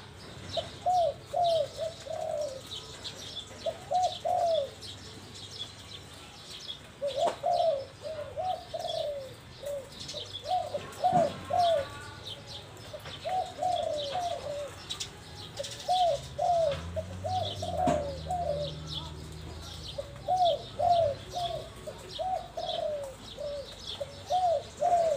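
Caged spotted dove cooing over and over in short phrases of two to four notes, with other birds chirping high in the background.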